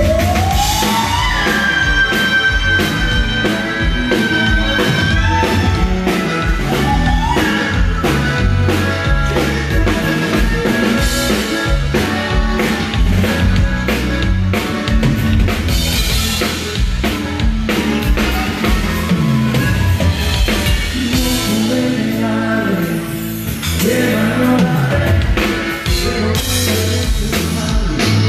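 Live band music played loud through a PA, with singing and a drum kit keeping a steady beat. Near the start a high lead note slides up and holds for about four seconds.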